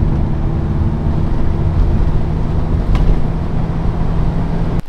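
Steady low rumble of a car's engine and road noise heard from inside the cabin while it drives. It cuts off suddenly near the end.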